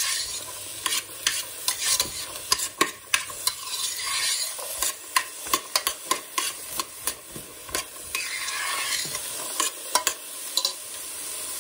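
A metal spoon stirring diced onion, carrot and celery in a stainless steel pot, with many quick scrapes and clicks against the pot. Under it, a steady sizzle of the vegetables sautéing.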